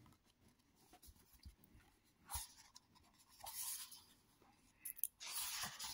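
Faint rustling and sliding of paper as a hardcover book's pages are turned and handled, in a few short spells.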